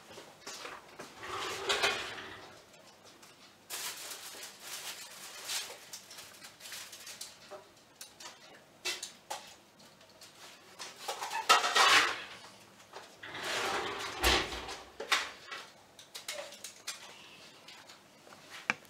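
Scattered clunks, scrapes and rattles of a kitchen oven being opened and a baking tray being taken out and handled, the loudest knocks about twelve and fourteen seconds in.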